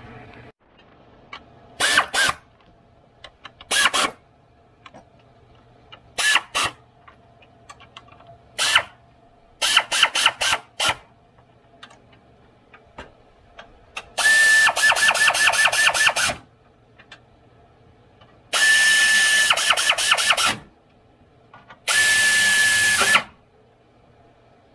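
Pneumatic air ratchet tightening the 10 mm radiator mounting bolts. It starts with a series of short blips, then runs three times for a second or two each, with a steady whine and rapid clicking.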